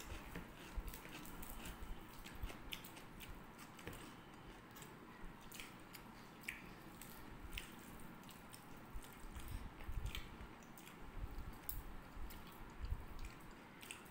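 Faint chewing and mouth sounds of people eating rice and vegetable dishes by hand, with scattered small clicks and soft thumps from hands and food on the plates.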